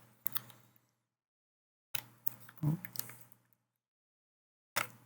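Short groups of sharp plastic clicks and taps as a laptop motherboard is handled and seated into its plastic bottom cover, with gaps of silence between them.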